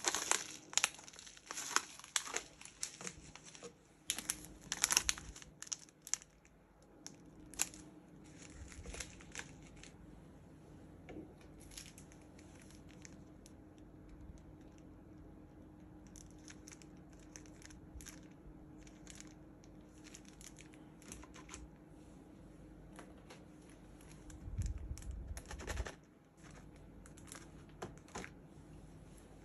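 Packaging being handled and unwrapped: crinkling and tearing in quick irregular rustles, busiest in the first few seconds and again about 25 seconds in.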